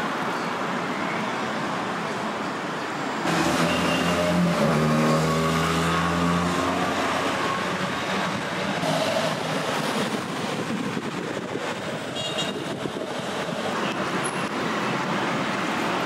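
Street traffic: a steady bed of road noise, with a motor vehicle's engine passing close by and louder from about three to seven seconds in.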